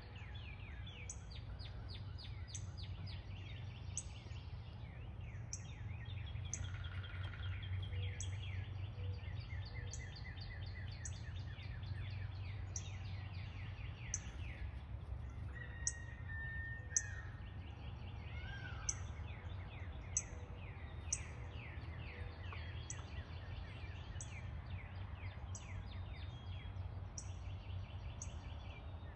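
Wild songbirds singing and calling: many quick repeated chirp series and trills, with a couple of clear whistled notes partway through, over a low steady background rumble.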